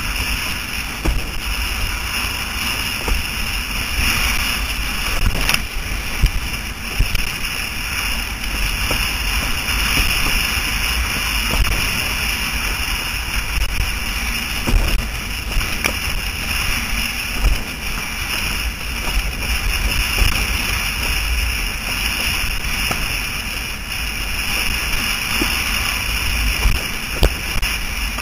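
Wind rushing and buffeting over a helmet-mounted GoPro Hero3 while windsurfing, a steady deep rumble with hiss. Short knocks and splashes come through at irregular moments as the board runs over chop.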